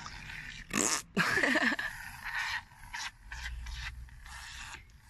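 Shaving-foam and water mixture squelching and sputtering out of the neck of a bottle that a hand half blocks, in irregular spurts. The loudest spurts come about a second in, then shorter hissy ones follow.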